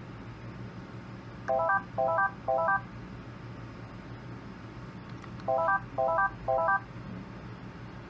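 Electronic chirps sounded during Wi-Fi pairing of a USB wall-plug IP camera: two groups of three short beeps, each a quick rising run of tones, about four seconds apart.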